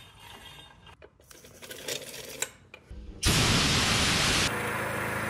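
Metal clicking and rattling as a heavy steel plate spins on an arbor press. About three seconds in, a loud rushing noise starts abruptly. A second later it drops to a steadier machine hum.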